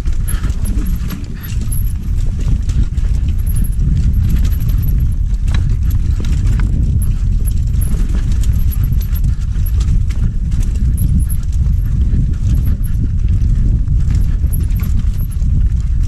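Mountain bike descending a rough dirt trail, heard from a camera on the rider: heavy wind rumble on the microphone with continual rattling and knocking of the bike over bumps and ruts.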